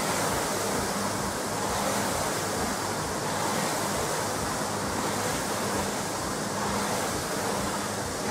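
Air rowing machine's fan flywheel spinning as it is rowed, a steady rushing whoosh.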